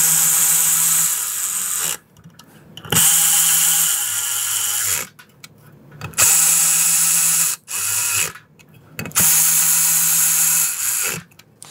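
Cordless electric ratchet running in four bursts of about two seconds each, with short pauses between, driving the stator mounting bolts into the motorcycle's stator cover.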